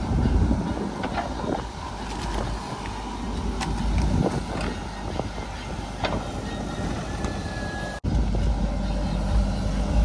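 Heavy vehicle engine running, with scattered clanks and knocks over it. The sound drops out for an instant about eight seconds in.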